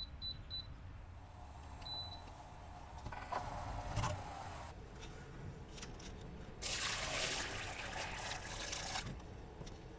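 Barley-and-potato wort poured from a large pot through a metal mesh strainer into another pot: a steady stream for about two and a half seconds starting well past halfway. Before it there is quieter liquid noise and a single knock of the pot about four seconds in.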